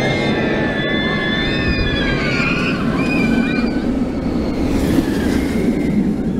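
Steel hyper roller coaster train running along its track with a steady roar. Several riders scream in high, wavering voices over the first half. A brief rushing hiss comes near the end as the train passes.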